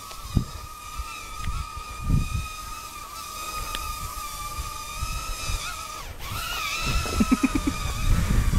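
Small RC quadcopter's electric motors whining at a steady high pitch, with a brief dropout about six seconds in before the whine picks up again. Gusts of wind buffet the microphone.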